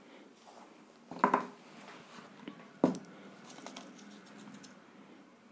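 Plastic glue bottle and small cardboard pieces handled on a tabletop: two short knocks, about one and three seconds in, then faint light clicks.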